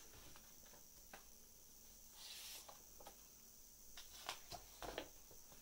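Faint handling of a hardcover picture book: a brief papery swish of a page turning a little after two seconds in, with soft taps and clicks of fingers on the pages and board covers.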